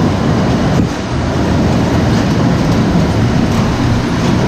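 Better Built potato seed cutter running with seed potatoes tumbling through it: a loud, steady clattering rumble.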